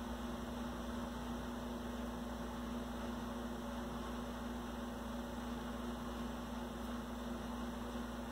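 Steady electrical hum with one unchanging low tone over a faint hiss; no distinct events.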